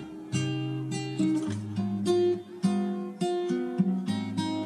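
Background music: an acoustic guitar playing a run of plucked notes over a changing bass line.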